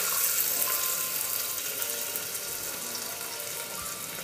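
Chopped onion frying in hot oil in a pressure cooker, a steady sizzle that slowly dies down as the oil cools around the fresh onion.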